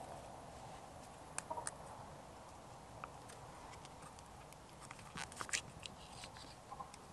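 Small sharp clicks and taps of hands handling a small jar and its lid: a pair about a second and a half in, and a quick cluster, the loudest, a little after five seconds, over a faint steady background hiss.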